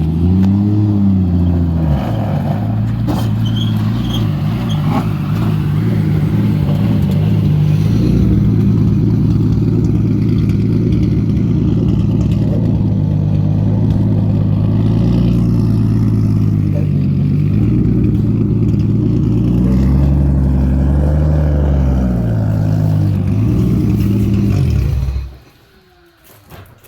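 Toyota Chaser drift car's engine running loud, its revs rising and falling briefly near the start and again about 20 seconds in, then switched off abruptly about 25 seconds in.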